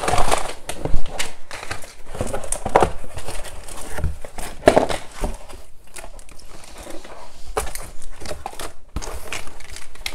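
Cardboard shipping box and plastic-packaged craft items being handled during unboxing: irregular rustling and crinkling with light knocks.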